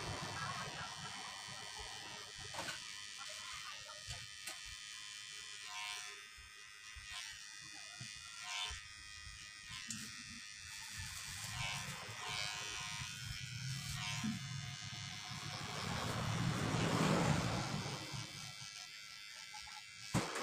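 Cordless electric hair clipper running with a steady high buzz as it cuts short hair on the side and back of the head, with small clicks along the way. A louder low rumble swells and fades about three-quarters of the way in.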